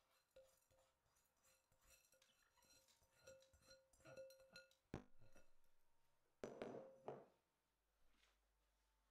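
Faint clinks of a glass bowl knocking against a stainless steel mesh strainer and bowl while rinsed rice is drained, each clink ringing briefly, with a sharp click about five seconds in. A short splash of rinse water being poured off follows about six and a half seconds in.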